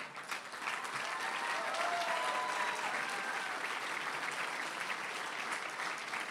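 Audience applauding, building up about half a second in and holding steady.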